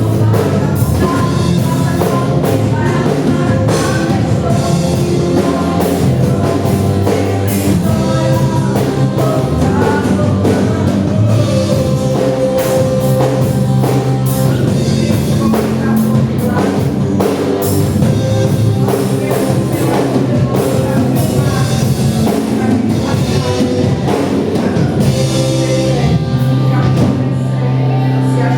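Gospel worship song: singing over drum kit and guitar with a steady beat.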